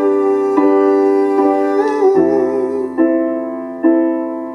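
Live piano playing sustained chords, restruck roughly every second, with a held sung note carrying over the chords for the first two seconds before the piano continues alone.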